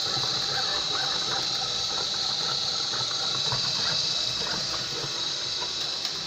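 Seebest C565 robot vacuum running: a steady hiss from its suction fan with a wavering whir underneath from the brushes and drive.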